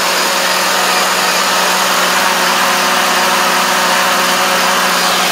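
Car audio system playing a loud, steady bass tone in a 'ground pounding' bass test, overloading the recording into an even, distorted roar with a steady hum through it.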